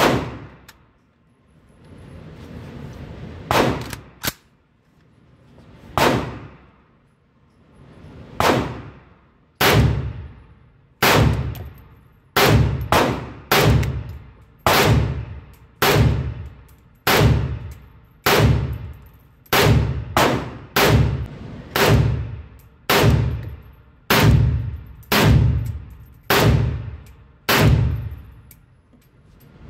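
Palmetto State Armory AKP, an AK-pattern pistol with a muzzle brake, fired semi-automatically: a few single shots spaced seconds apart, then a steady string of about one or two shots a second, about thirty in all. Each shot echoes loudly in an indoor range.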